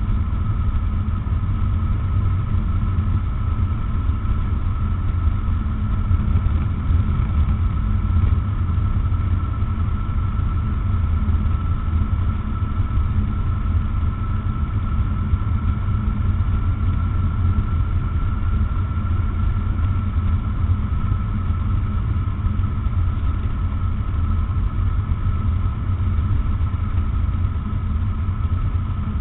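Rotax 912 four-cylinder boxer engine of an open-cockpit microlight trike running steadily, with airflow rushing over the microphone, on final approach to land.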